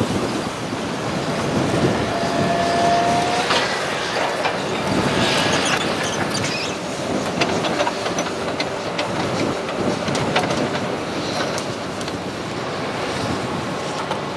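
A hydraulic excavator running, with sharp clanks and knocks of its bucket against rocks and timber, mostly in the middle, over a steady wash of surf and wind.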